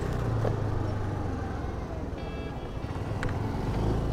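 Motor scooter being ridden along the road: a steady low engine hum with wind and road noise, easing slightly around two seconds in. A short faint high tone sounds briefly at the same point.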